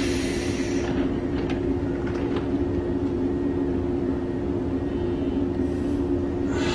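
JR West 115 series electric train standing at the platform, its on-board auxiliary machinery giving a steady hum. A hiss fades out about a second in, and a few faint clicks follow.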